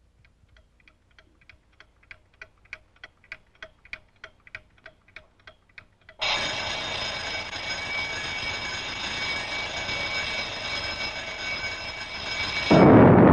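Alarm clock ticking at about four ticks a second, swelling and fading, then ringing with a harsh steady ring. Near the end the ringing stops as a hand comes down on the clock, and a sudden louder rushing noise cuts in.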